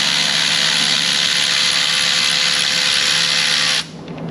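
A power tool running steadily, a mostly high-pitched whir, for about four seconds, then stopping suddenly.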